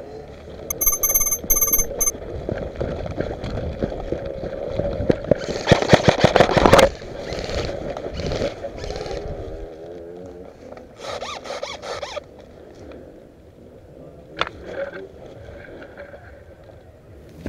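Tall grass and brush rustling and scraping against a moving player's gear and helmet camera, with footsteps through the vegetation. A denser, louder patch of crackling comes around six seconds in and a shorter one near eleven seconds. A brief high squeal sounds about a second in.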